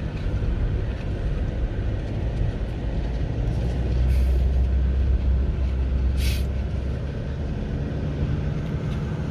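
A vehicle's engine and road noise as it drives, a steady low rumble that grows heavier from about three and a half to seven seconds in. A brief hiss comes about six seconds in.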